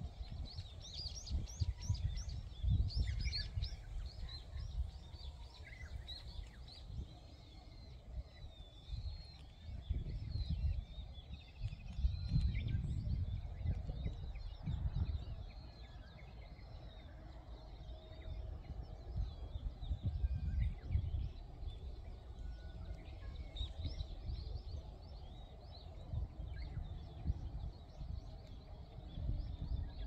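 Gusts of wind buffeting the microphone, with several small birds chirping and trilling throughout, busiest in the first few seconds and again about three-quarters of the way in.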